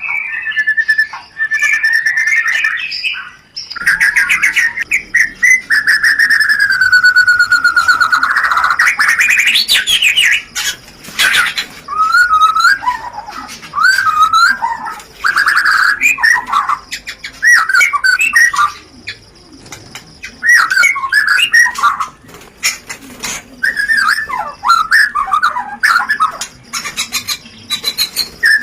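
White-rumped shama (murai batu) song in breeding condition: a long falling whistle followed by rapid, varied twittering and chattering rattles. It is the mating call that keepers play to stimulate pairing.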